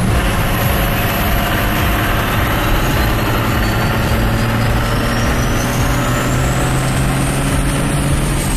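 Turbo diesel pickup engine pulling steadily, heard from inside the cab, under a thin high turbo whistle. The whistle climbs slowly in pitch from about three seconds in and starts to drop near the end.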